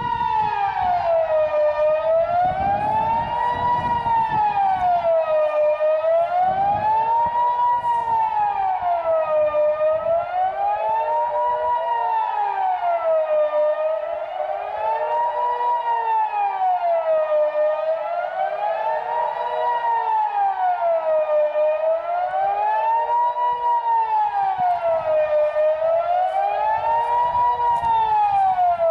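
Kockum Sonics Delta 6-AT electronic civil-defence siren sounding the Swiss 'general alarm': a single tone wailing smoothly up and down, one rise and fall about every four seconds.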